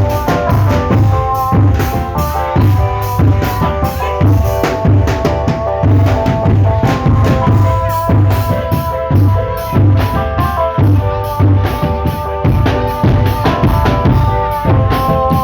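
Marching drum band playing: bass drums and snare drums beating a steady rhythm under a melody of held notes.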